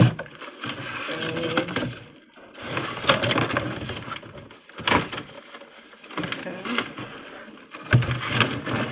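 Cardboard box and plastic packaging being handled: irregular rustling with scattered knocks and clicks.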